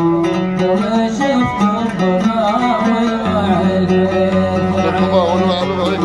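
An oud plucked in the Gulf sawt style, playing a continuous melody. A man's singing voice joins over it in the second half.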